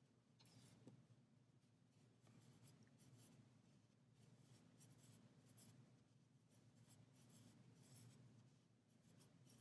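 Near silence, with faint scattered rustles and scratches of a crochet hook working thick Bernat Blanket yarn as a slip knot is made and a foundation chain is crocheted.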